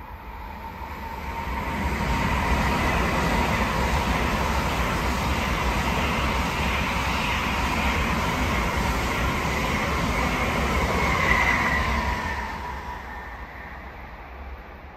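N700-series Tokaido Shinkansen train passing through the station at speed without stopping. A rushing sound builds over about two seconds, holds for about ten with a steady whine over it, then fades away.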